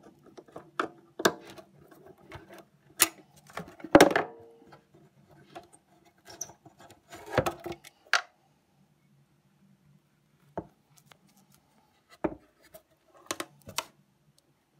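Handling noise as a Peerless loudspeaker is worked loose and lifted off a wooden amp baffle: scattered knocks, clicks and scrapes of the metal frame against wood and screws, the loudest knocks about four and seven seconds in.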